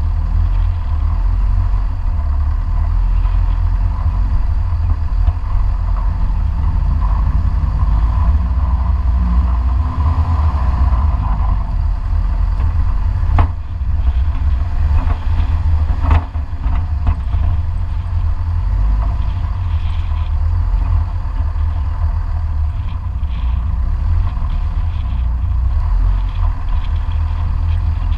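A 4x4 jeep driving slowly over a rocky dirt track: a steady low rumble of engine and tyres, with two sharp knocks about three seconds apart near the middle.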